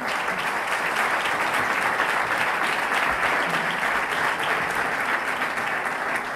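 Audience applauding: a steady round of hand-clapping from a roomful of people.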